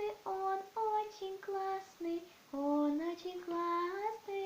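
A girl singing unaccompanied: a string of short sung notes with brief pauses between them. By her own account her throat is dry and strained from a cough.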